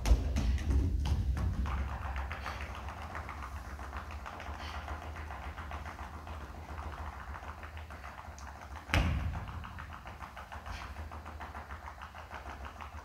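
Noisy, percussive dance soundtrack: it starts suddenly and loudly, with a steady low rumble under a dense patter of quick taps, and one hard hit about nine seconds in that rings away.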